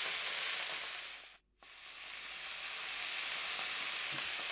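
Beef rouladen searing in hot fat in a frying pan: a steady sizzle. It fades out about a second in, drops to silence for a moment, then fades back in and carries on.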